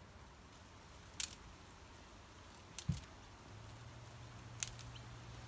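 Small wire cutters snipping at a thin wire to strip its insulation: three sharp snips spread over a few seconds, with a faint steady low hum starting about two-thirds of the way in.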